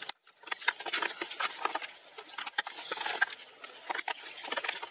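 A screwdriver turning screws out of the plastic base of a Dell RT7D20 keyboard: a run of small, irregular clicks and scrapes of metal on plastic.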